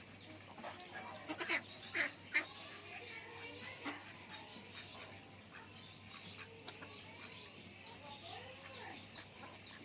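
Ducks quacking while feeding, a few loud calls close together about one and a half to two and a half seconds in, over a steady chirping of smaller birds.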